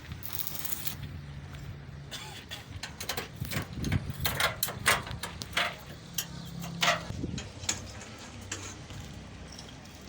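Irregular sharp clanks and knocks of metal being handled and struck, over a low steady hum, with faint voices in the background.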